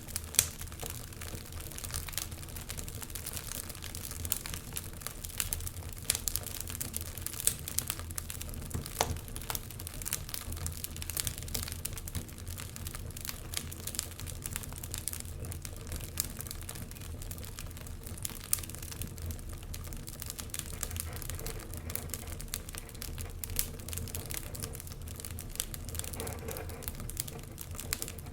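Wood fire crackling, with irregular sharp pops and snaps scattered throughout, over a steady low rumble.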